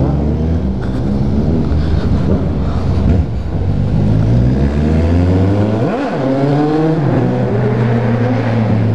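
Motorcycle engine accelerating hard as the bike pulls away, its revs climbing and dropping again with each gear change.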